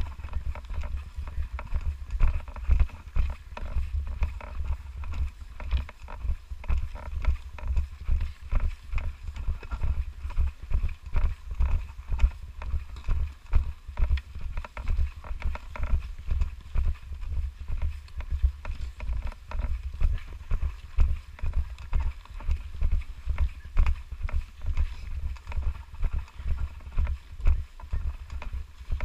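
Footsteps crunching through deep snow at a steady walking pace, about two steps a second, each step a dull thud with a heavy low rumble from the body-worn camera's movement.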